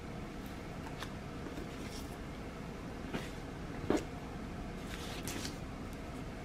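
Quiet room with a few faint handling sounds: light clicks and rustles, with a soft knock about four seconds in.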